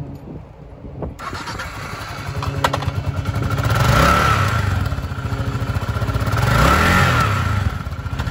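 2009 Kawasaki KLR650's single-cylinder four-stroke engine starting about a second in, then running and revved twice, its pitch rising and falling each time.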